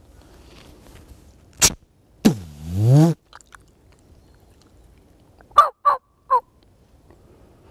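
Turkey spit and drum: a sharp short spit, then a low hum about a second long that dips and rises in pitch. A few seconds later come three quick, short turkey calls.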